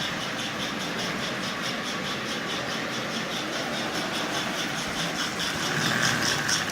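Lionel Sound of Power mechanical tender running at low speed: ball bearings tumbling inside its hollow disc make a rhythmic rattling chuff, about three to four beats a second, over the steady hum of the running toy train. The disc is driven by a rubber band standing in for its broken rubber belt.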